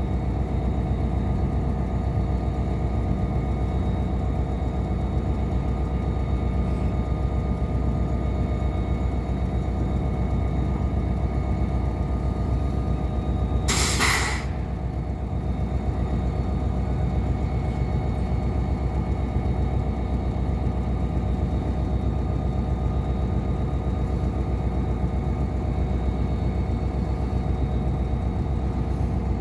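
NJ Transit PL42AC diesel locomotive idling with a steady rumble while its train stands at the crossing, with one short, sharp hiss of air from the brakes about halfway through.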